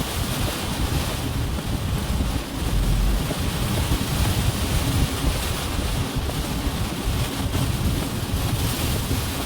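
Strong typhoon wind blowing across the microphone: a continuous rushing noise with heavy low rumbling buffets that rise and fall without pause.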